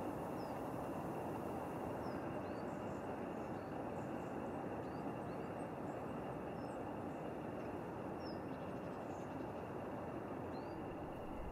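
Outdoor ambience: a steady background rush with small birds chirping briefly and faintly every second or so.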